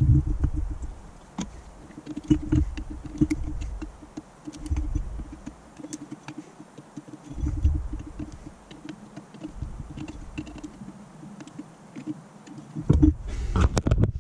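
Hand work on the metal housing of a Holley electric fuel pump: a screwdriver driving its screws, with irregular small clicks and scraping and low knocks as the parts are handled and fitted together.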